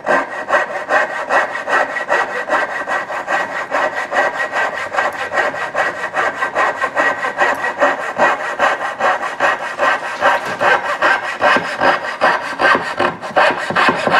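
Coping saw cutting through a block of wood in quick, even back-and-forth strokes.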